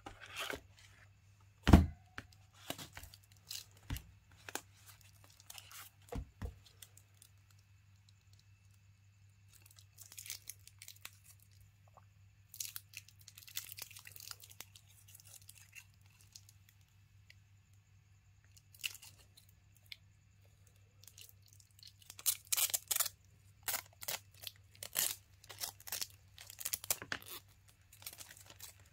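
Hands handling a Citizen Eco-Drive stainless-steel dive watch: a sharp knock about two seconds in and light clicks of the steel bracelet, then crinkling and tearing of the clear plastic protective film being peeled off, loudest in the second half.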